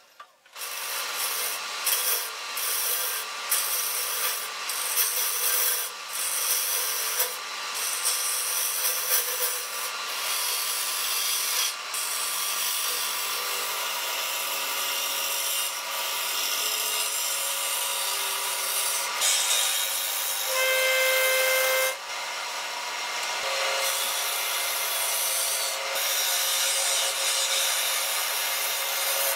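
Turning tool cutting a spinning maple blank on a wood lathe: a continuous scraping, shaving sound, with short breaks as the tool comes off and back onto the wood. About twenty seconds in, a brief ringing squeal lasts a little over a second.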